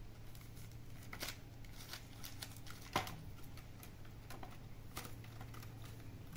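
Scattered light taps and scratches of a kitten's claws on a plastic crate's grid as it paws through at another kitten inside, with one sharper click about three seconds in.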